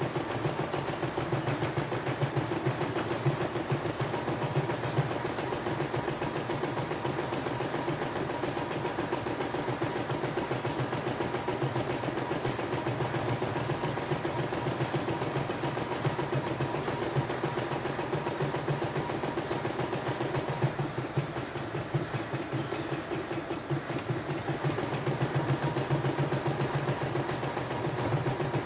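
CNY E960 embroidery machine stitching a design in its hoop: a steady, fast run of needle strokes at an even pace.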